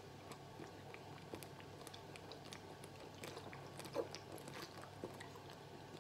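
A man gulping beer straight from a bottle: faint swallowing and wet mouth clicks, with one sharper gulp about four seconds in.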